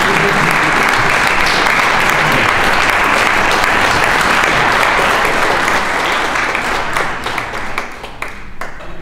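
Audience applauding in a concert hall, a dense steady clapping that thins out to a few scattered claps about seven seconds in and dies away near the end.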